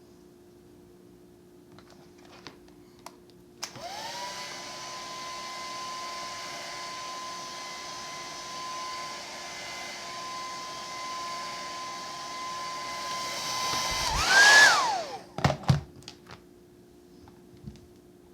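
Small wig blow dryer motor switched on, spinning up to a steady whine over the rush of blown air. Near the end it gets louder and its pitch rises briefly, then it winds down and stops, with a few clicks of the switch and handling. The repaired dryer is working.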